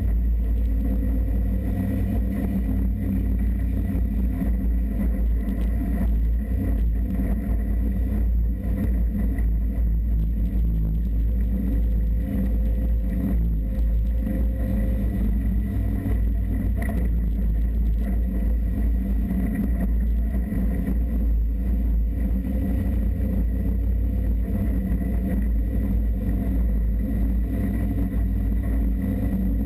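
Off-road vehicle driving at a steady pace: its engine running evenly under a constant, deep low-end noise, with no gear changes or revving.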